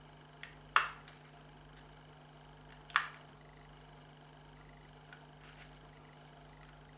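Two sharp clicks about two seconds apart from the plastic housing of a car reverse light switch being pried apart with a screwdriver, with a few faint small ticks between.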